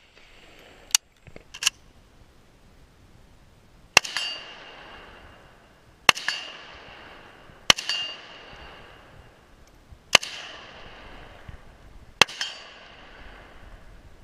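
Five single shots from a SIG556R rifle in 7.62×39 mm, spaced about two seconds apart, each trailed by a ringing echo that dies away within a second. Two sharp clicks come about a second in, before the first shot.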